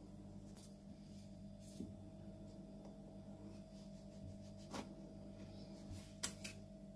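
A knife cutting through a chocolate-coated feqqas log on a bamboo mat: a few faint sharp clicks and cracks as the blade goes through the set chocolate, the loudest near the end, over a steady low hum.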